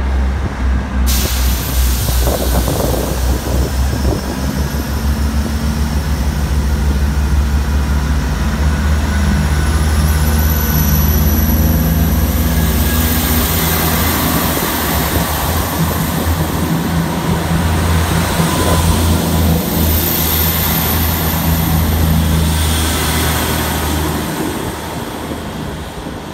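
South Western Railway Class 159 diesel multiple unit pulling away from the platform under power, its underfloor diesel engines giving a steady low drone over the rumble of the moving train. The drone cuts off about two seconds before the end, and the sound fades as the train draws away.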